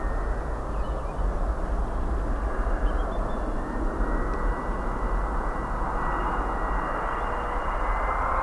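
Boeing 777 on short final approach, its twin turbofan engines running at approach power: a steady rumbling jet noise with a thin high fan whine, growing a little louder near the end as the airliner closes in.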